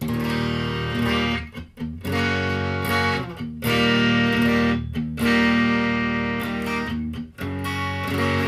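Electric guitar played through a breadboard prototype distortion pedal set for heavy clipping, giving a thick, distorted tone. Chords are struck about six times and left to ring, with short breaks between them.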